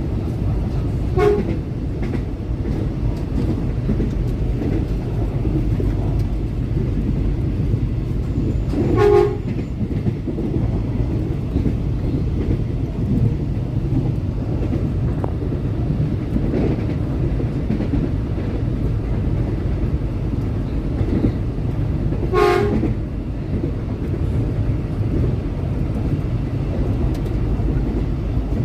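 KRL Commuter Line CLI 225 electric train running with a steady rumble, heard from inside the carriage. Its horn gives three short blasts: about a second in, about nine seconds in (the loudest) and about twenty-two seconds in.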